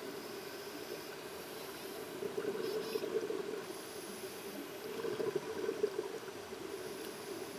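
Scuba divers' exhaled air bubbling and burbling, recorded underwater and sounding muffled. It swells louder twice, about two seconds in and again around five seconds in.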